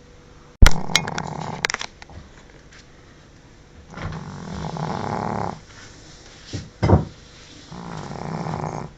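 Pekingese snoring in its sleep: three long snores, the first starting abruptly and loudest, with a short sharp snort a little before the last.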